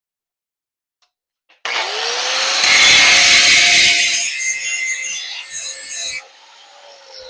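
Power grinder starting up about a second and a half in, its motor whine rising and then holding steady while it grinds a steel knife blank cut from a sawmill blade, with a harsh rasp. The grinding stops about six seconds in and the motor winds down near the end.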